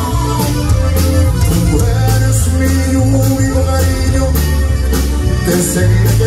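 Live band music: a man singing over a button accordion, electric bass and a steady drumbeat, with heavy bass notes.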